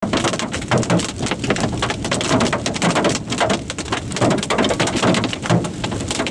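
Hailstones pelting a moving car's windshield and body, heard from inside the cabin: a dense, continuous clatter of hard hits.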